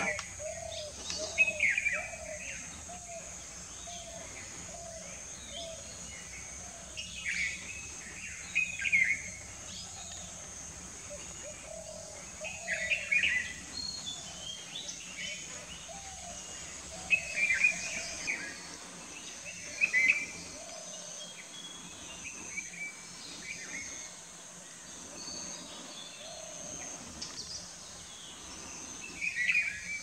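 Wild forest birds calling: loud chirpy calls every few seconds, with a run of lower repeated notes in the first third, over a steady high insect drone.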